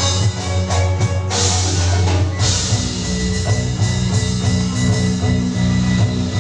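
Instrumental music with drums. Its low held notes change to a new pitch about two and a half seconds in.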